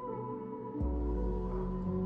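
Slow ambient background music of sustained held tones; the chord changes and a deep bass note comes in about a second in.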